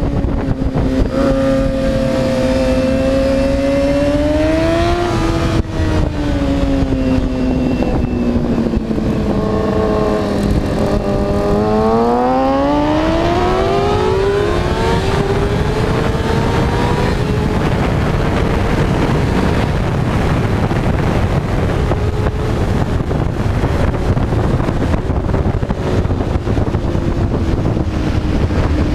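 Motorcycle engine at speed on a race track, its revs easing down as it slows, then climbing steeply as it accelerates again. Heavy wind rush on the microphone drowns most of the engine from about halfway through.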